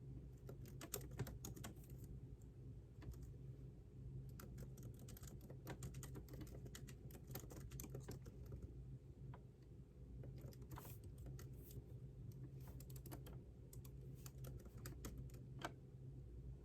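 Typing on a computer keyboard: quick irregular runs of keystrokes with short pauses between them, faint over a steady low hum.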